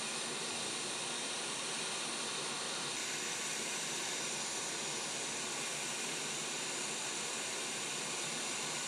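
Hot air rework station blowing a steady hiss through its nozzle, with airflow set to 60%, while it holds the solder under a chip on a graphics card board molten. The hiss gets slightly brighter about three seconds in.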